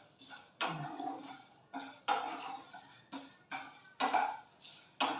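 A spatula scraping and knocking against a metal pan while stirring dry-roasting whole spices: a series of about eight separate strokes, each fading off with a slight metallic ring.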